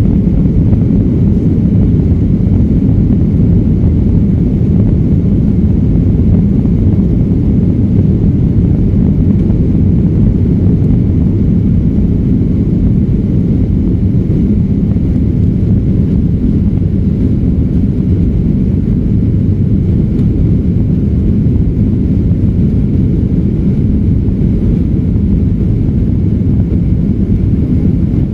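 Jet airliner in flight, heard from inside the passenger cabin: a steady, low noise of engines and rushing air.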